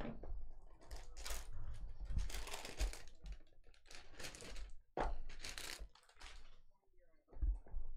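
Cardboard trading-card box being handled and opened by hand: a series of irregular rustling and scraping noises, several in a row.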